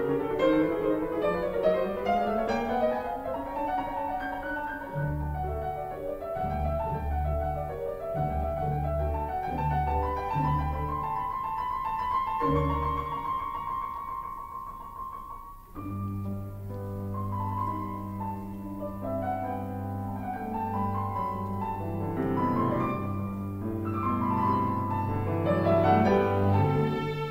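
Instrumental background music with piano. About sixteen seconds in it dips briefly, then comes back with long held low notes under fuller chords.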